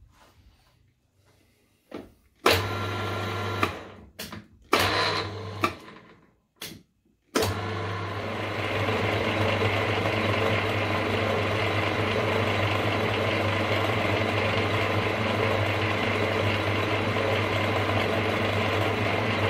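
Milling machine motor switched on twice in short bursts, then running steadily from about seven seconds in as an end mill roughs a metal crank-web blank, a steady low motor hum under the cutting noise.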